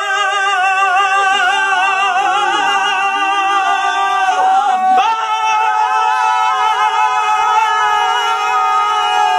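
A small group of voices singing long held notes together without accompaniment, with a wavering vibrato, in a mock-operatic style; they move to new, higher notes about five seconds in.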